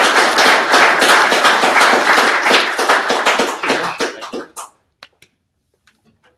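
Audience applauding: a dense run of hand claps that dies away about four and a half seconds in, followed by a few scattered last claps.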